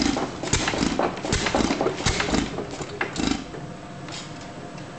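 International Harvester Model M 1½ hp single-cylinder hit-and-miss engine running, giving sharp beats a little under a second apart. About three and a half seconds in it goes quieter, with only light clicks, as the governor holds it off firing and it coasts on its flywheels.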